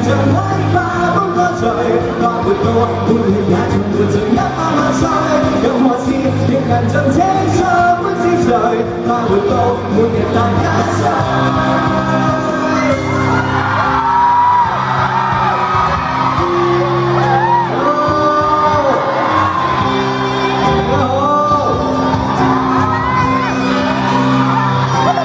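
A man singing a Cantopop song live into a handheld microphone over an instrumental backing, with held, wavering notes throughout.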